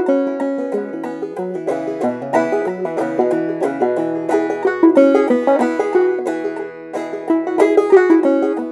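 Solo open-back banjo played clawhammer style: a continuous run of plucked melody notes and brushed strums in a steady, driving rhythm.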